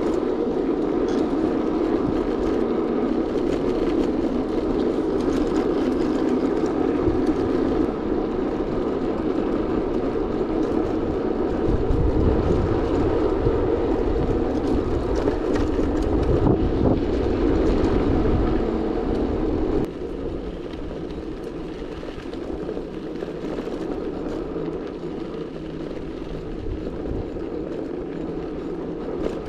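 Steady rushing wind and road noise from riding, with gusty low rumble in the middle; it drops noticeably in level about two-thirds of the way through.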